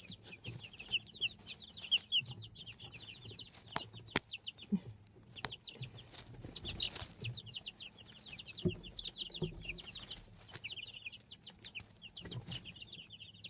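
Two-week-old chicks peeping continuously, a rapid stream of short high chirps, with a few scattered sharp taps.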